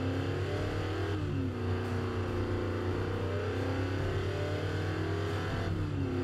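Race car engine sound effect laid over the picture: an engine revving up through the gears, its pitch climbing and then dropping at a shift about a second in, climbing again and dropping once more near the end, over a steady low hum.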